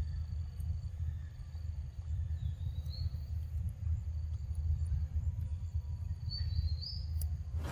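Outdoor forest ambience: a steady low rumble, with faint high insect chirping and a couple of short rising whistles, about three seconds in and again near the end.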